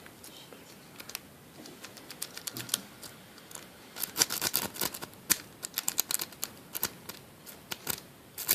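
Rake pick being scrubbed in and out of a Commando iChange padlock's keyway: quick, irregular metallic clicking as it rattles over the spool and serrated pin stacks under tension. The clicks are sparse at first and come much faster from about four seconds in.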